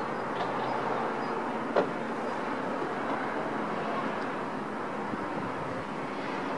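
Steady hum of distant city traffic, with one sharp click a little under two seconds in.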